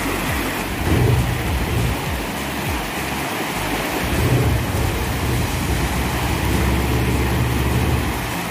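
Steady rush of a waterfall, with low rumbling swells about a second in and again from about four to eight seconds in.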